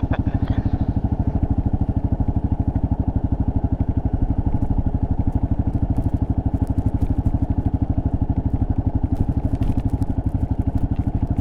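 2024 Kawasaki KLR650 S's single-cylinder engine running at a steady speed on a dirt road, its firing pulses even and unbroken, with a few faint ticks near the end.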